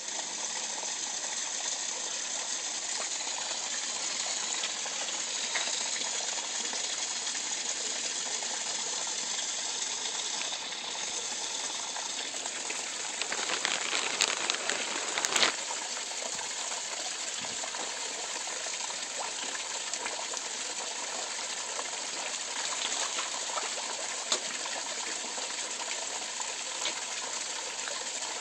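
Water pouring into a koi pond, a steady rushing splash. Halfway through there is a louder stretch of splashing with a few sharp clicks.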